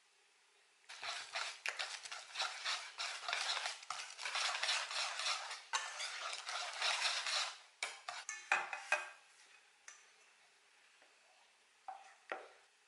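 A utensil stirring fast against a dish: a continuous run of scraping clinks for about seven seconds, then a few loose taps and two short knocks near the end.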